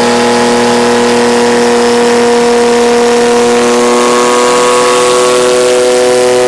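Rossion Q1's twin-turbocharged V6 running under load during engine break-in, holding steady revs, its pitch creeping slightly higher in the second half.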